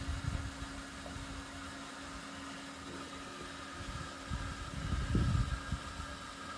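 Outdoor background noise: a steady low hum under an even hiss, with irregular bursts of low rumble near the start and again about four to six seconds in.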